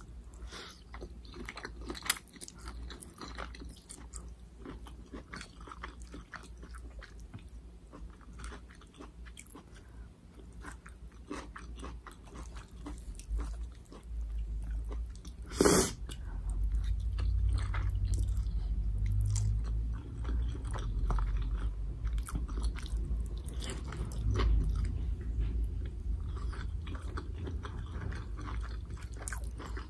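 Close-up mouth sounds of someone eating spicy Samyang noodles with vegetables: chewing and biting, with small wet clicks and some crunch. About halfway through comes one short loud noise, and after it a low steady rumble sets in and stays.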